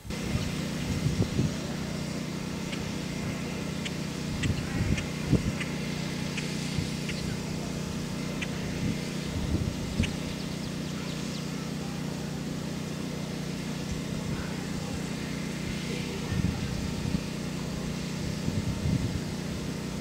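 A steady low mechanical hum, with scattered low thumps and a few faint ticks.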